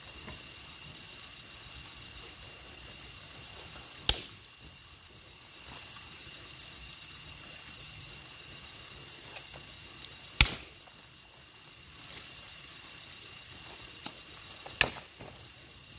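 Campfire wood popping: a handful of sharp, isolated snaps, the three loudest about four, ten and a half and fifteen seconds in, over a steady faint hiss.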